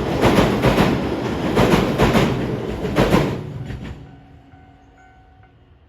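A train passing close by, its wheels clacking in pairs over rail joints; the sound falls away about three and a half seconds in as the end of the train goes by.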